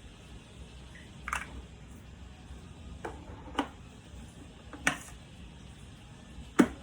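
Five short, sharp plastic clicks and knocks spaced a second or so apart, the loudest near the end: a coffee capsule and its holder being fitted into a Nescafé Dolce Gusto Genio S Plus capsule coffee machine.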